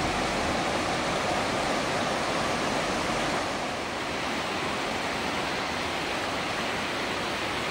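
River water rushing, a steady even roar.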